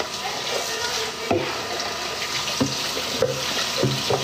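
Kitchen tap running into a sink while a plastic food container is rinsed under it, with a few light knocks of the container against the basin.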